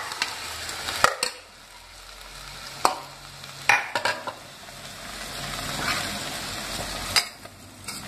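Spiced gravy sizzling in a hot pressure cooker, with a metal spoon scraping and clinking against a bowl and the cooker: a handful of sharp clinks over the steady sizzle.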